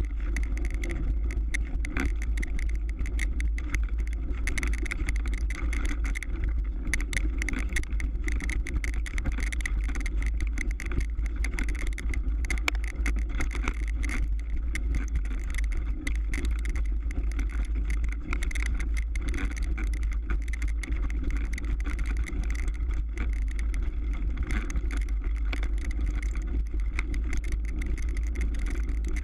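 Mountain bike rolling over ice and hard-packed snow: a constant low wind rumble on the microphone, with frequent small knocks and rattles as the bike goes over bumps.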